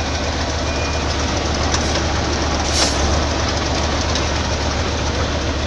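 Heavy machine's engine running steadily under a broad mechanical noise, with a brief burst of noise about three seconds in.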